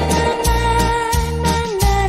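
Electronic keyboard playing an instrumental oldie: a held melody note that steps down near the end, over bass and a steady beat.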